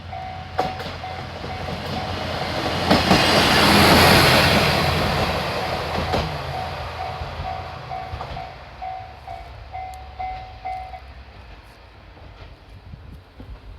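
A single diesel railcar built to look like a Shinkansen passes over a level crossing, its noise swelling to a peak about four seconds in, with wheel clacks over the rail joints, then fading. The crossing's warning bell rings in a steady repeating pattern under it and stops about eleven seconds in.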